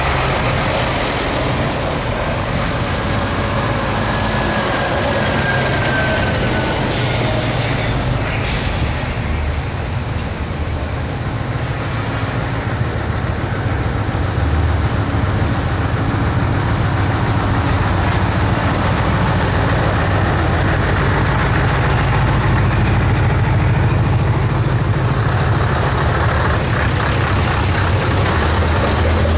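Diesel engines of Scania truck tractors driving slowly past one after another in a convoy, a steady low drone throughout. A brief air-brake hiss comes about eight seconds in.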